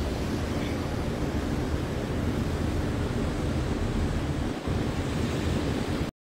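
Steady wind noise buffeting the microphone, with a heavy low rumble, cutting off suddenly near the end.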